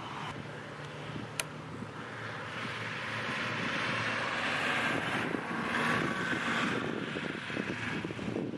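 Diesel locomotive approaching under power, its engine noise growing steadily louder, with a single sharp click about a second and a half in.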